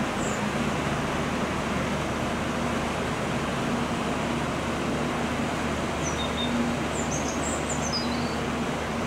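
River cruise ship's engines running with a steady low drone and wash noise as the ship passes. A bird chirps a few times near the end.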